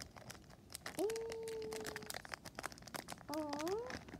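Small plastic toy bags crinkling and crackling as the toys are unwrapped. About a second in comes a held wordless vocal sound, and near the end a shorter one that rises in pitch.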